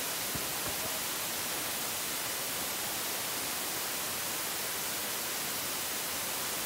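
Steady, even hiss of static, like a microphone's noise floor, with no speech over it.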